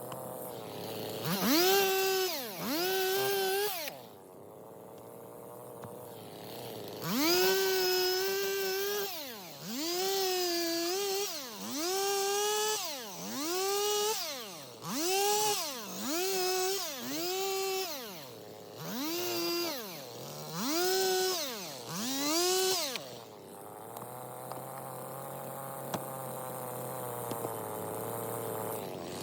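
Stihl MS 250 two-stroke chainsaw revving in about a dozen short bursts, roughly one a second, each climbing in pitch, holding briefly, then dropping back to idle. It idles steadily for a few seconds between the first two bursts and the rest, and again near the end.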